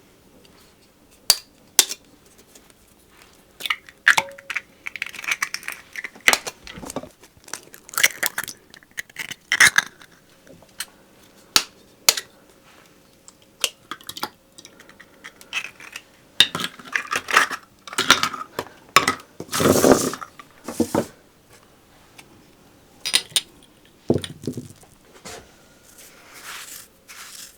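Kitchen handling sounds: dishes and utensils clinking and knocking, mixed with short rustling or tearing noises, as food is prepared by hand. One longer, louder rustle comes about two-thirds of the way through.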